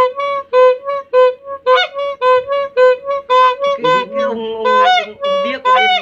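A Vietnamese ice-cream seller's horn (còi kem) sounded in a quick string of short, reedy toots, about three a second, alternating between two close notes. Around four seconds in the pattern breaks into a longer wavering, sliding note before the toots resume.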